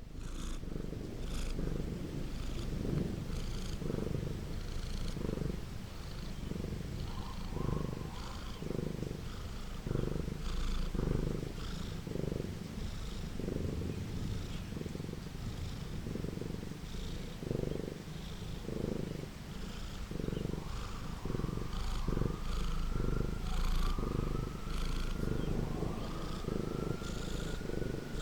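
Domestic cat purring steadily, in even low pulses of about one and a half a second. From about two-thirds of the way in, a faint whine glides up and down above it.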